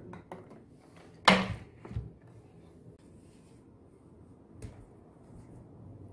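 Husqvarna combi can, a plastic fuel-and-chain-oil can, set down on a tabletop with one sharp knock about a second in, followed by a few lighter knocks and handling noise.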